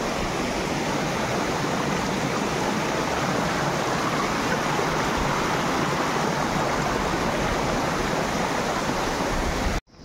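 Mountain stream rushing and splashing over rocks, a steady rush of water that cuts off abruptly near the end.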